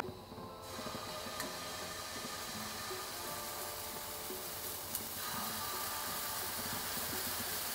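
Buttermilk pancake batter sizzling as it is poured into a hot frying pan: a steady hiss that starts just under a second in.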